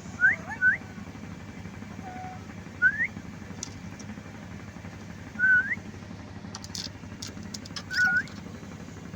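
Black-capped lory giving short rising whistles, five in all, two quick ones at the start and then one every two to three seconds, over a steady low background hum.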